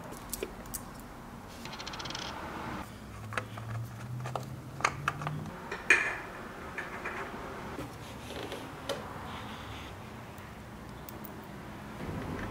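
Scattered clicks, knocks and scrapes of hands and tools working on the underside of a motorcycle engine during an oil change, with one loud clack about six seconds in. A faint low hum rises in pitch in the first half.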